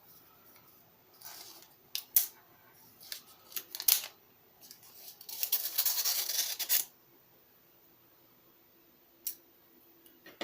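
A paper package being cut open with a blade: a few sharp clicks and snips, then a rasp of about a second and a half as the blade slices through the paper, and a single click near the end.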